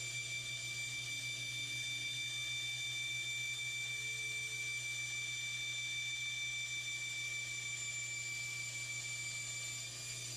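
Powermatic bandsaw running steadily as it cuts a thick redwood board: a constant motor hum under a steady high whine from the blade.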